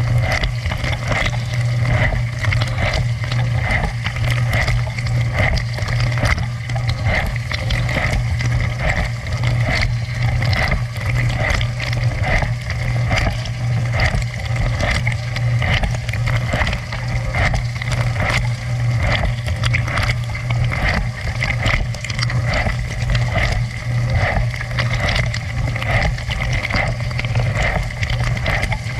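Dishwasher running its wash cycle, heard from inside the tub: a steady low hum from the circulation pump under the constant rush and splatter of water spraying against the interior.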